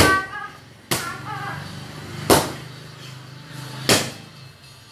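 Strikes landing on a padded taekwondo kick shield: four sharp smacks, about one to one and a half seconds apart. A voice is heard briefly in the first second or so.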